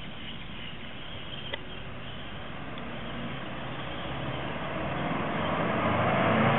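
Subaru Impreza WRX STI's turbocharged flat-four engine and tyres growing louder from about halfway as the car approaches, loudest near the end as it draws close.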